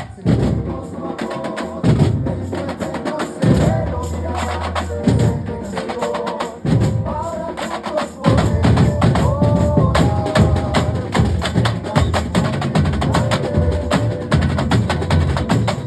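A carnival comparsa batería, a percussion section of bass drums, snare drums and sharp wood-block-like strikes, playing a loud, driving rhythm together.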